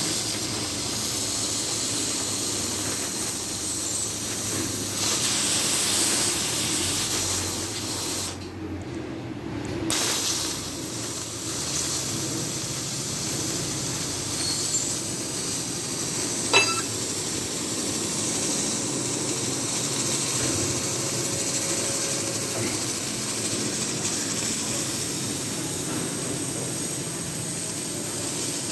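CNC cutting torch cutting through steel plate, a steady hiss of gas and flame. The hiss dips briefly about a third of the way in, and there is one sharp pop a little past halfway.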